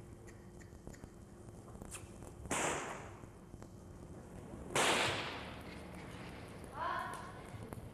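Two sharp whip cracks about two seconds apart, each with a long echo from the indoor riding arena. A short call follows near the end.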